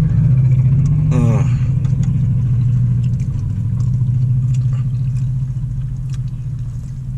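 Steady low hum of an idling car engine, holding an even pitch throughout.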